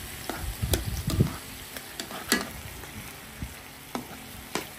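Chicken breasts in barbecue sauce sizzling in a large pan, with metal tongs clicking and scraping against the pan as the pieces are turned. Several sharp clicks stand out over the steady sizzle.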